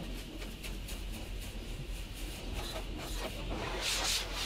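Water spray and droplets pattering on a truck's windshield and cab during a truck wash, heard from inside the cab over a low steady hum. A louder rush of spray hits the glass about four seconds in.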